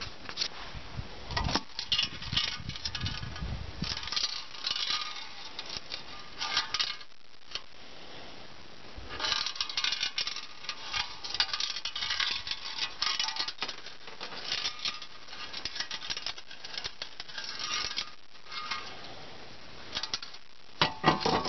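Shot-riddled metal insulated travel mug being handled and turned over, giving irregular metallic clinks, taps and rattles as it knocks against a car panel and its torn metal flaps shift.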